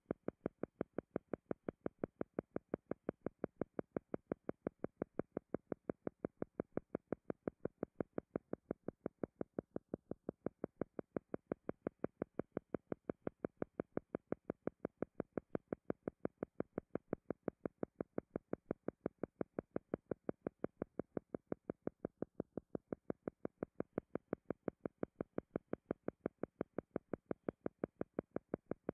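Soft synthesized pulsing tone under a hypnosis recording, beating evenly at about four pulses a second.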